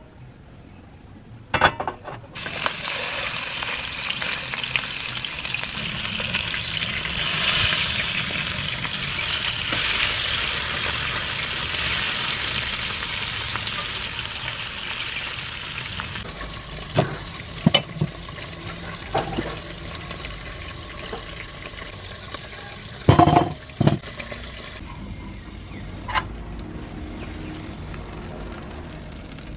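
Fish steaks frying in hot oil in a nonstick pan: a loud, steady sizzle starts about two seconds in and eases to a softer sizzle in the second half. A wooden spatula knocks and scrapes against the pan several times as the pieces are turned and lifted out.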